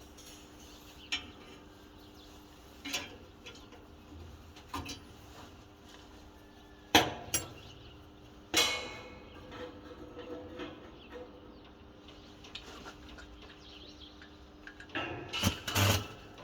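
Scattered metal clinks and knocks, a second or more apart, the loudest two about seven and eight and a half seconds in and a quick cluster near the end, over a faint steady hum.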